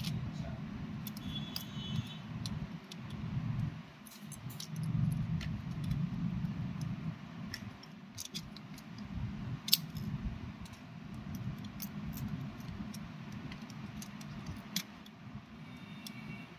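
Scattered small clicks and taps of hands and fingers handling the parts inside an opened tablet, over a steady low background rumble.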